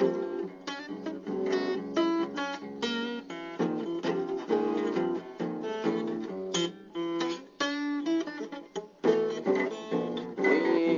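Acoustic guitar music, with individual plucked notes following one another in quick succession.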